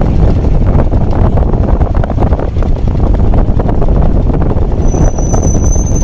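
Wind buffeting the microphone over vehicle road noise on a moving ride: a loud, steady rumble. A thin, steady high tone comes in near the end.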